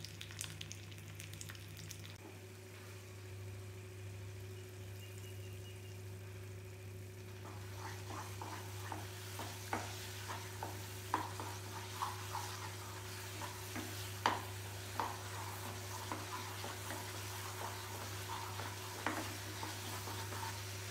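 Cashews, almonds and raisins sizzling in ghee for the first two seconds. Then thick banana halwa is stirred and scraped around a non-stick pan with a spatula, with irregular soft clicks and scrapes one or two a second. A steady low hum runs under it all.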